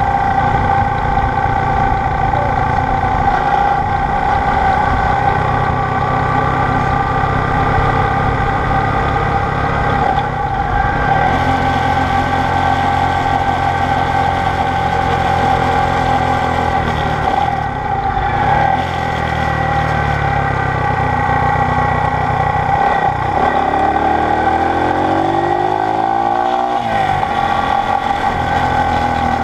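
Honda SL90's small single-cylinder four-stroke engine running under way, steady for most of the stretch. About 23 seconds in the revs climb in a rising pitch, then drop sharply near 27 seconds.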